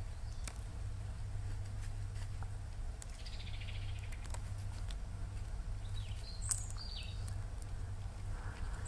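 Dry fallen leaves rustling and crackling in scattered clicks as a Eurasian red squirrel forages on the ground. Small birds call over it: a short falling trill about three seconds in and a few sharp chirps around six to seven seconds. A steady low rumble runs underneath.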